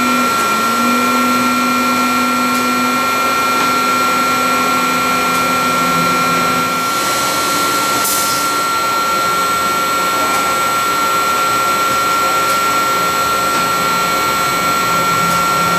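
Cincinnati 350-20 RK centerless camshaft grinder running with a steady whine and a constant high tone. A lower hum stops about seven seconds in, and two short hisses come soon after.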